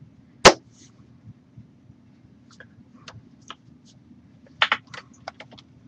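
A sharp slap about half a second in, then scattered light taps and clicks with a quick double one near the end, from hands striking each other and the body while signing. A steady low hum runs underneath.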